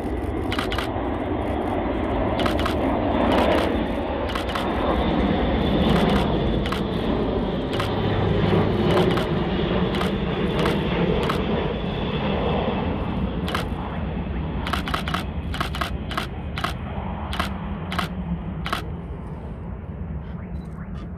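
Airbus A400M's four TP400 turboprop engines on landing approach: a steady propeller drone that swells as the aircraft passes low and fades over the last several seconds as it moves away. Many sharp clicks sound throughout.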